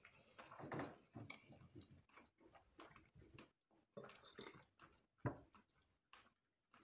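Faint chewing and mouth sounds of people eating, with light clicks of forks, one sharper click about five seconds in.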